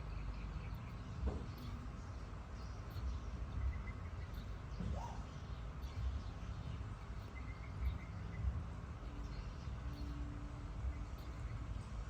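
Steady low rumbling background noise with a few short high calls, two of them rising in pitch, about a second in and about five seconds in.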